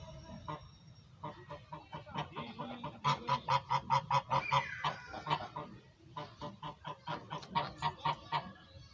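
Domestic geese honking in rapid runs of short calls, about four or five a second. The calls grow loud about three seconds in, pause briefly near the sixth second, then start again.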